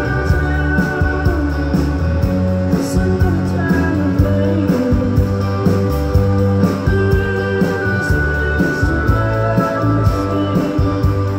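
Live band playing a song through a PA: guitars, bass, keyboard and drums with a steady beat.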